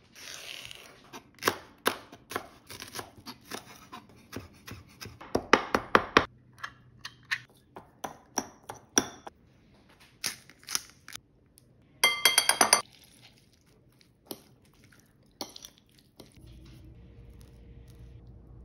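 Food-prep sounds: a knife chopping on a wooden cutting board in runs of sharp knocks, and a fork clinking and scraping against a glass mixing bowl, with a ringing clatter of clinks partway through. Near the end it goes quieter, to a faint steady hum.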